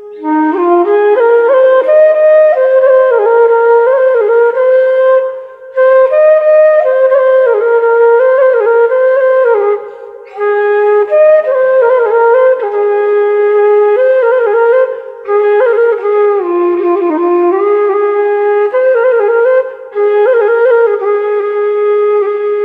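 Background music: a flute-like woodwind melody played in phrases of about five seconds, with short pauses between them.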